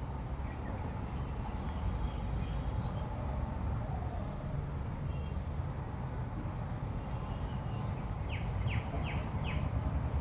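Steady high-pitched insect chorus, typical of crickets, over a constant low rumble. Near the end a bird gives four quick downward-sliding notes.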